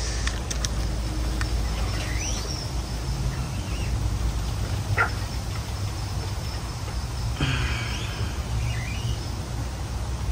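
Riverside outdoor ambience: a steady low rumble with a few scattered bird calls, one a short rising chirp about two seconds in, and more brief calls later on.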